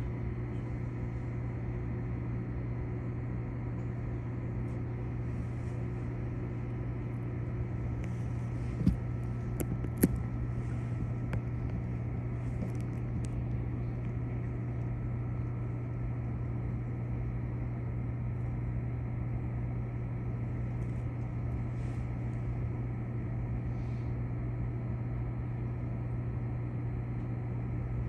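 Steady low hum of a stopped Keikyu electric train's onboard equipment, heard from inside the car while it stands waiting out a safety check after an emergency stop. Two sharp clicks sound about nine and ten seconds in.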